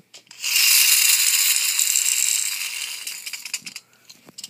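Pull-back Koopa shell toy's spring motor whirring with a rattle as it runs off, starting suddenly loud about half a second in and dying away over about three seconds.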